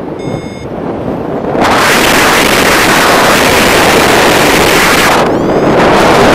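Wind buffeting the microphone of a paraglider pilot's camera in flight: a loud rushing that drops away for about a second and a half at the start and briefly again about five seconds in.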